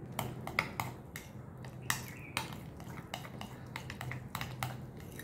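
Spoon stirring thick hung curd and grated petha in a glass bowl, clicking and scraping against the glass in irregular ticks, a few each second.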